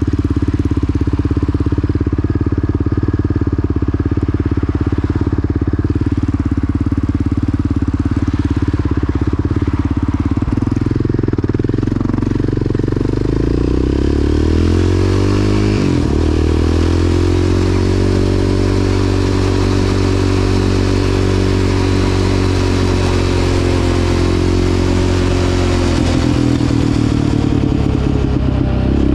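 Yamaha Raptor 700 quad's single-cylinder engine running at low revs, then pulling away about ten seconds in. The revs rise, drop sharply once as it shifts up, then hold steady at cruising speed.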